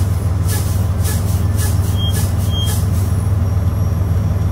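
Semi-truck's diesel engine idling steadily, heard from inside the cab. In the first few seconds come several short hisses and two short high beeps.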